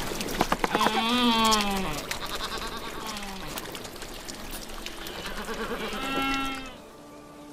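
Rockhopper penguins giving harsh, wavering bleating calls, a loud one about a second in and another near six seconds, over water dripping and splashing from a spring-fed shower onto rock.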